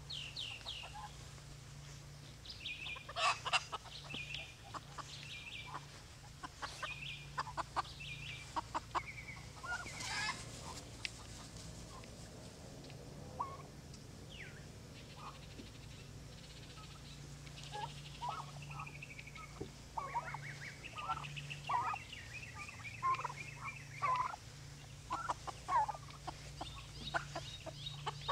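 Poultry calling again and again: short clucks and quick rattling runs of notes, thickest a few seconds in and again in the last third, over a low steady hum.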